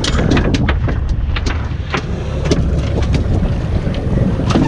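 A freshly landed king mackerel thrashing on a boat deck: a string of irregular slaps and knocks over steady wind noise on the microphone.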